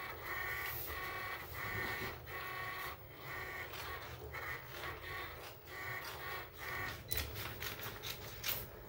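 Electronic vinyl cutting machine running a cut on heat-transfer vinyl: its motors whine in short repeated strokes about every half second, with a few sharp clicks near the end.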